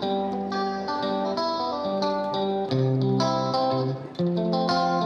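Background music led by a plucked guitar, playing a melody of quick notes.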